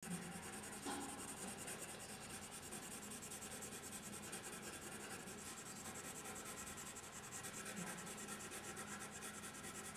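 Faint, steady pencil scratching on paper, in quick even strokes.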